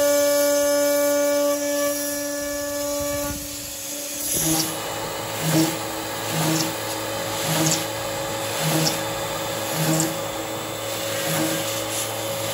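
CNC router spindle milling aluminium plate with an end mill. It starts as a steady whine with overtones; about four seconds in the sound changes to a hissing cut that swells regularly about once a second.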